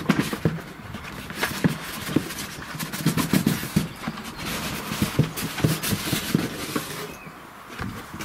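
Lid of a large cardboard box being worked off: cardboard scraping and rubbing, with many scattered small knocks.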